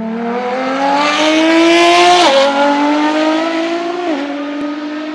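A car engine accelerating hard through the gears. The note climbs steadily and drops sharply twice, about two and four seconds in, as it changes up a gear.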